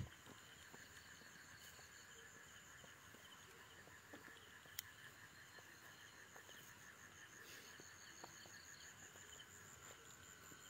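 Faint chorus of crickets and other night insects: a steady, pulsing trill at several high pitches, with a single sharp click about five seconds in.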